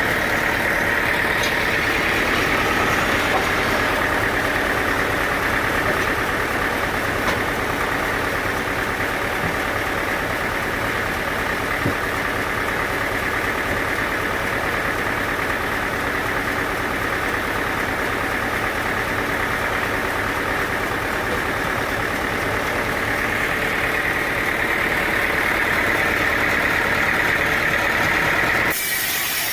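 Sawmill machinery running steadily: an engine-like hum with a high-pitched ring over it. The sound changes abruptly about a second before the end.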